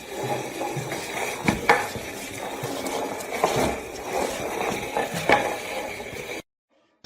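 Clattering and scraping of small hard objects, with a few sharp knocks; it cuts off suddenly near the end.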